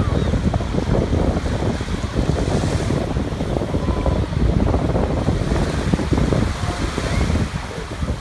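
Wind buffeting the phone's microphone with a steady low rumble and flutter, over small waves breaking and washing up on a sandy shore.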